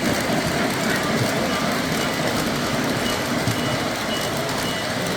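Steady background chatter of a crowd of people talking, with no single voice standing out.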